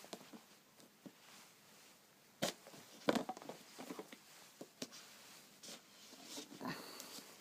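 Handling of a boxed iPad Air being opened: scattered light clicks and knocks of the box and packaging, the sharpest about two and a half and three seconds in, with faint rustling between.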